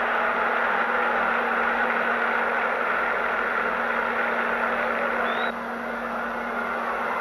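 Football stadium crowd noise, a steady wash of many voices, with a constant low hum underneath; the level drops suddenly at a cut about five and a half seconds in.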